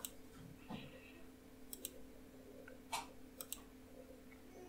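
Computer mouse button clicked a few times at irregular intervals, several as quick press-and-release double clicks, over a faint steady hum.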